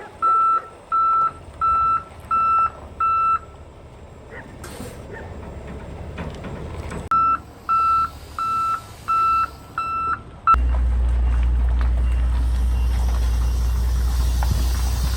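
Backup alarm of heavy equipment beeping about twice a second, in two runs with a pause between. About ten seconds in the beeping stops and a loud, low, steady rumble starts suddenly.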